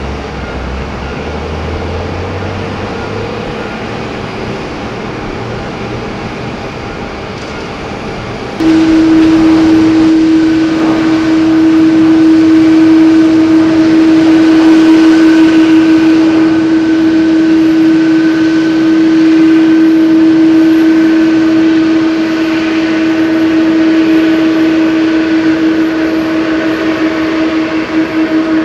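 Boeing 767-300ER jet engines: a steady jet rumble from the climbing airliner. About eight and a half seconds in, a cut brings a much louder steady drone with a strong constant hum, from the same type of airliner on final approach with its gear down.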